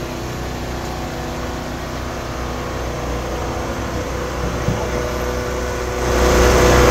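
Pickup truck engine idling with a steady low hum, while the last of the loudspeaker music fades in the first moments. A broader rush of noise grows louder about six seconds in.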